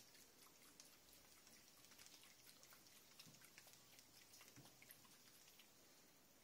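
Near silence: faint room tone with scattered light ticks and clicks.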